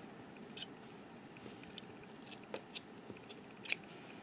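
Scissors snipping a yarn tail close to a crocheted piece: several faint, short, sharp snips and clicks, the loudest near the end.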